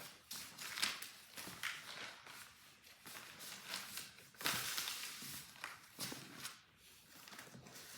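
Gift bags being gathered up by hand: irregular rustling and crinkling with soft knocks, in uneven bursts.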